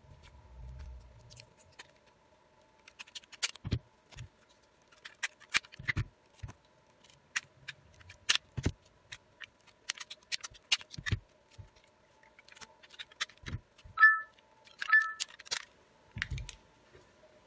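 Rubber bands being stretched and snapped around a smartphone, heard as a string of sharp snaps and clicks against the phone body. The bands clamp the newly glued replacement screen. Two short beeps come about three-quarters of the way through.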